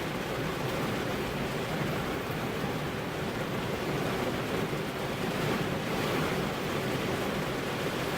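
Heavy rain falling on a car's windows and body, a steady, dense hiss with no separate drops standing out.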